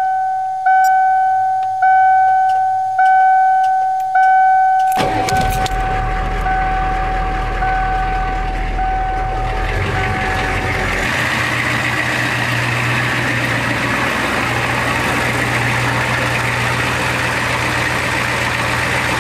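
A diesel pickup truck's dashboard warning chime dinging about once a second while the glow plugs heat, then about five seconds in the diesel engine cranks, catches and settles into a steady idle, the chime carrying on faintly for a few more seconds.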